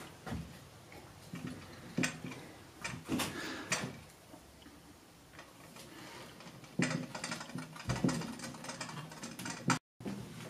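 Light handling noise of plastic tubing and fittings being worked onto a water filter housing: scattered small clicks and knocks, with a cluster about two to four seconds in and another around seven to eight seconds.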